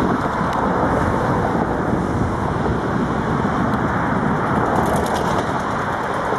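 Steady road traffic noise: an even rush of passing vehicles with no single event standing out.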